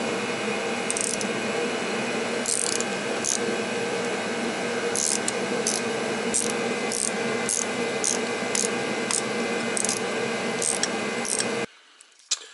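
Hand wrench ratcheting on a fitting on top of a truck transmission: short bursts of clicks, sparse at first, then about two a second from about halfway. A steady machine hum runs underneath. Both cut off abruptly near the end.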